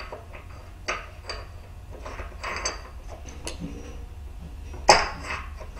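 Steel R8 collet being slid by hand up into a Bridgeport milling machine spindle and worked in it, giving light metallic clicks and scrapes and one sharp metal clink about five seconds in, the loudest sound. The collet is being test-fitted over the freshly replaced collet alignment set screw to check that it slides in as it should.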